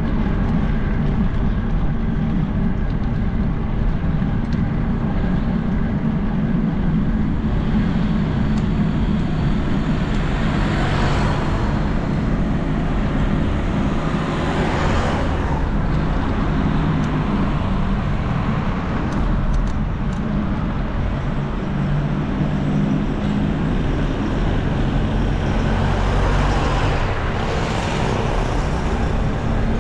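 Street traffic: a steady engine hum with vehicles passing close by, most plainly about eleven, fifteen and twenty-eight seconds in.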